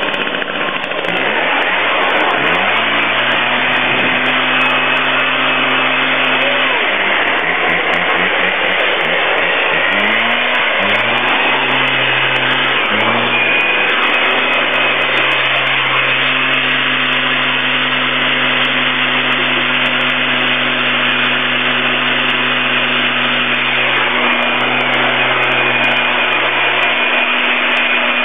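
Stihl BR 380 two-stroke backpack leaf blower running. It comes up to speed about a second in, drops and rises again a few times, then holds a steady high speed from about thirteen seconds in, with the rush of air from the blower tube throughout.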